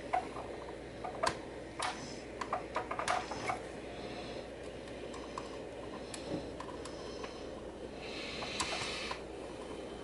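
Scattered light clicks and taps of a soldering iron tip and desoldering braid working on a keyboard's circuit board, most of them in the first few seconds, with a soft hiss lasting about a second near the end.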